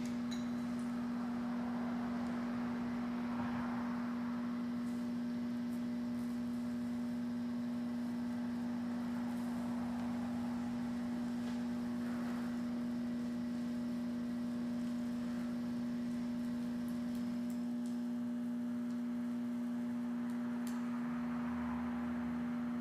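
A steady low humming tone throughout. Beneath it is the faint, even hiss of a DHC2000 oxy-acetylene welding torch flame, which swells softly a few times as a thin steel sheet is gas-welded with filler rod.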